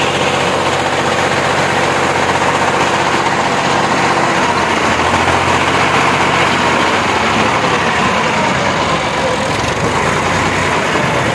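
Massey Ferguson 260 tractor's diesel engine running steadily under load as its hydraulics tip up a loaded trolley to dump soil.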